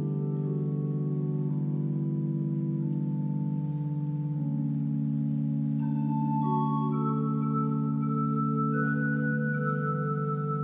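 Organ playing slow, long-held chords; higher notes join the chord about six seconds in.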